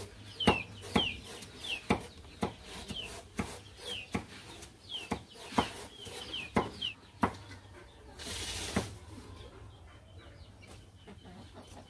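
Chickens calling in the background: a run of short, high calls, each falling in pitch, about two a second, which stop about seven seconds in. A brief burst of hiss follows about a second later, over a low steady hum.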